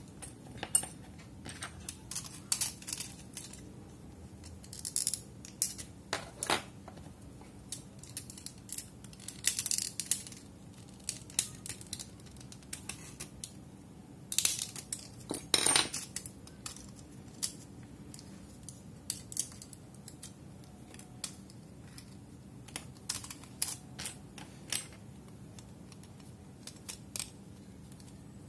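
Tamiya Mini 4WD plastic chassis and propeller shaft being handled and fitted together by hand: irregular small plastic clicks, taps and light rattles, with a louder cluster of clicks about halfway through.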